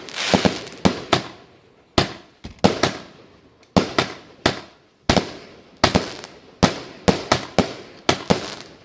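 Consumer fireworks going off in a rapid run of sharp bangs, roughly one every half second at uneven spacing, each dying away briefly before the next.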